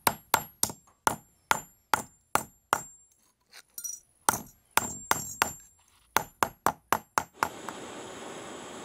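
Hammer strikes flattening a small metal lure blank on a steel block, sharp ringing blows about three a second with a short pause in the middle and a quicker run near the end. Then the blows stop and a gas torch flame hisses steadily.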